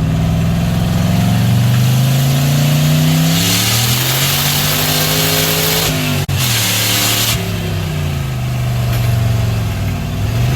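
Turbocharged car engine on a hard acceleration pull. The revs climb, cut out briefly about six seconds in, then fall as the throttle eases off. A loud hiss rides over the engine through the middle of the pull.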